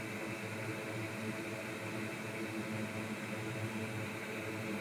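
Steady, even whir of a small fan, with a faint hum underneath.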